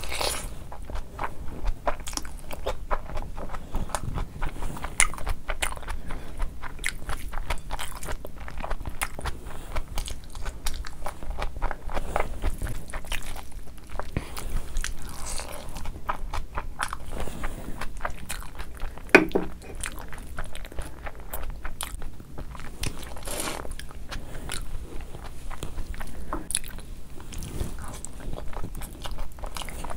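Close-miked eating: a person chewing mouthfuls of biryani rice with wet smacking sounds, while a hand squishes and mixes rice on a steel plate. There is one louder knock a little past the middle.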